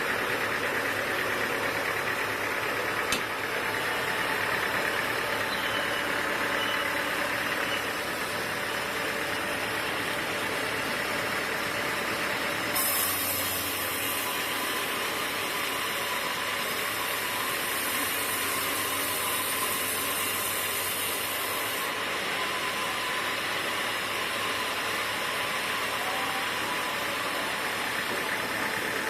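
Sawmill machinery running steadily with an engine-like hum. A high hiss joins about thirteen seconds in and stops sharply about nine seconds later.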